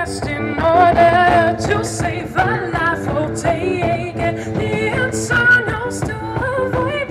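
Live band music with a woman singing over bass guitar, guitar and drums, the cymbals ticking in a steady beat.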